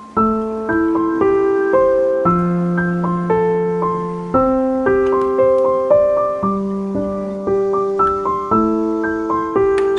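Background music: a gentle piano melody, its notes struck at a steady pace of about two a second.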